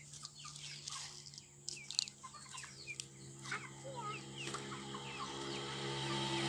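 A flock of hens clucking and giving short calls as they crowd in to feed on scattered grain. A steady humming tone grows louder near the end.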